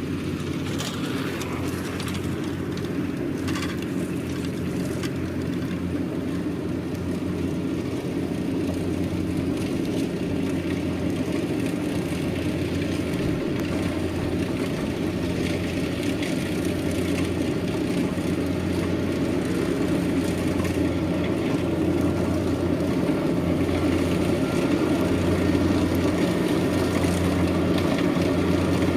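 Kubota DC-70 combine harvester's diesel engine running steadily under working load, with the whir of its threshing machinery, gradually growing louder.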